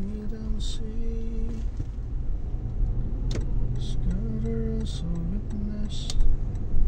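Steady low rumble of a car's engine and tyres heard from inside the cabin while creeping along in heavy traffic, with a melody playing faintly over it.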